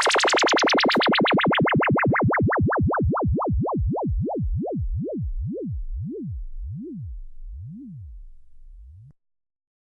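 Synthesized laser sound effect: a warbling tone sweeping rapidly up and down in pitch, the sweeps slowing and sinking lower as it winds down, until it cuts off suddenly about nine seconds in.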